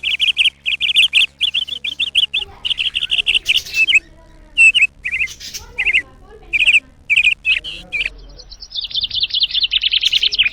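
Small pet birds chirping in quick clusters of short calls, then a fast continuous chattering trill starting near the end.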